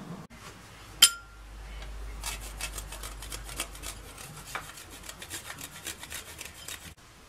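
Chocolate rubbed across a flat stainless-steel grater over a plate: a fast run of short rasping strokes, about four or five a second. About a second in, a single sharp metallic clink rings briefly and is the loudest sound.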